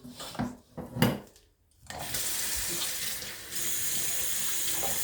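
A few handling knocks, then a kitchen tap turned on about two seconds in, running steadily as a pot is filled with water.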